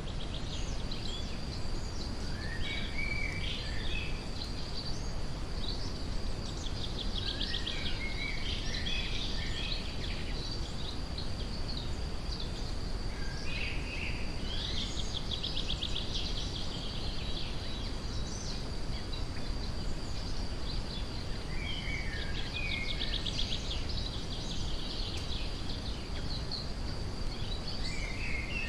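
Songbirds calling in scattered bouts of chirps and fast trills over a steady, deep brown-noise hiss, with a thin steady high note running underneath.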